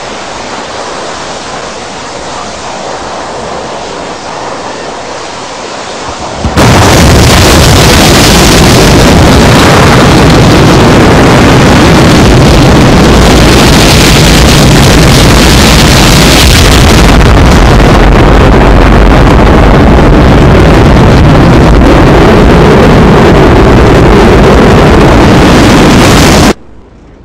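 Space Shuttle launch close to the pad: the main engines' start gives a steady rushing noise, then about six and a half seconds in the solid rocket boosters ignite and a very loud, deep, continuous rocket roar takes over, clipping the recording. It cuts off abruptly near the end.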